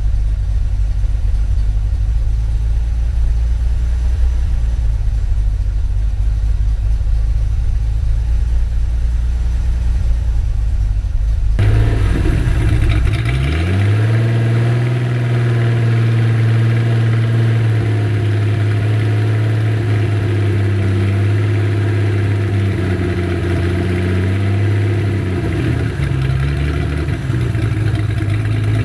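Turbocharged Datsun 240Z engine running while parked, on its second run. It is first heard muffled from inside the cabin as a deep idle. About two-thirds of the way through it is heard from behind at the exhaust, revs up briefly and holds a steady raised speed, dipping slightly near the end.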